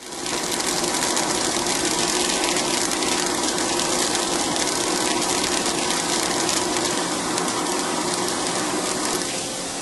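CNC machine running steadily: an even rushing noise with a faint steady hum, starting abruptly and easing slightly near the end.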